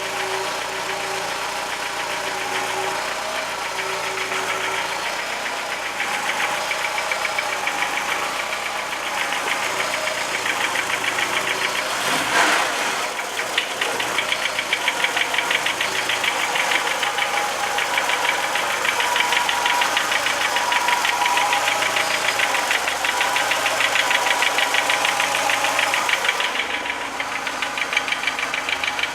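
Volkswagen Jetta Mk2's 1.8-litre four-cylinder engine running cold with a fast, even knocking, a strange knock the owner cannot place. The knocking grows louder about six seconds in, with one brief louder swell about twelve seconds in.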